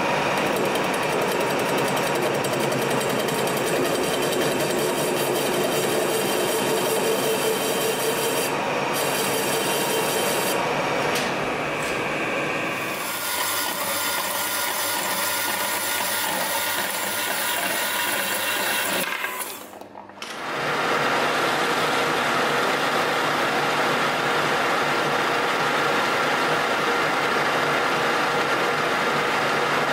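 Metal-cutting machine tools at work: a lathe turning steel with a cutting tool, then a small metal-cutting bandsaw sawing through round steel bar. After a brief sudden drop-out, the lathe runs again, turning a large disc.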